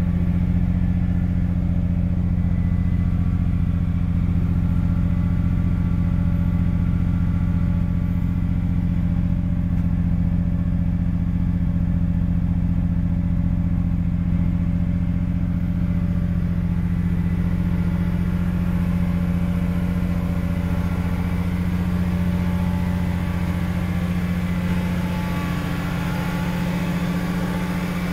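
1995 Nissan Skyline GT-R R33 V-Spec's RB26DETT twin-turbo straight-six idling steadily through its aftermarket exhaust, with no revving. It grows slightly quieter near the end.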